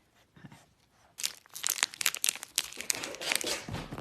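Crinkling and rustling, a rapid run of crackles that starts about a second in and stops just before the end, with a low thump near the end.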